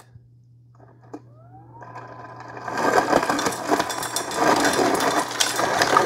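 LG French-door refrigerator's through-door ice dispenser making crushed ice: the motor starts with a rising whine that levels into a steady hum. About two and a half seconds in, a loud rattle of crushed ice pouring into a stainless steel tumbler builds up.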